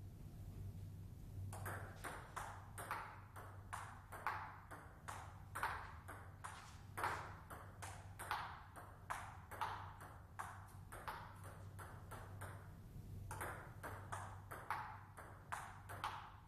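Table tennis ball clicking back and forth in a rally, bounces on the table alternating with hits off the bats, a few clicks a second; one bat is a Hallmark Aurora blade with Meteor 8512 OX rubber. The clicks start about a second and a half in and pause briefly about 13 seconds in before resuming.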